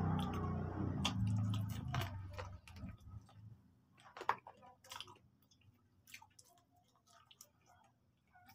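A person chewing fried chicken with the mouth near the microphone: wet smacking and short crisp clicks. A low hum sounds through the first three seconds, and then the chewing goes on alone.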